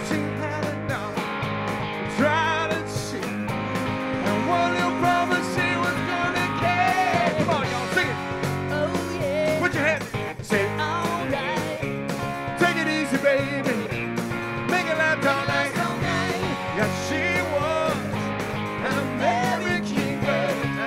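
Live rock band playing electric guitars and drums, with a man singing lead into a microphone.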